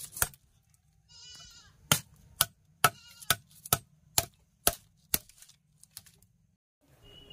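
Kitchen knife scraping the scales off a whole fish against a wooden block: a run of about eight sharp strokes, roughly two a second. A short animal bleat sounds about a second in.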